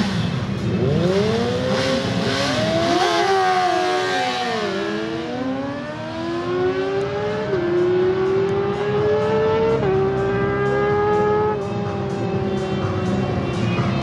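Yamaha R1 and R6 sport bikes' inline-four engines launching off the line and accelerating hard. Their pitch climbs steeply, drops back, then climbs again in steps as they shift up through the gears.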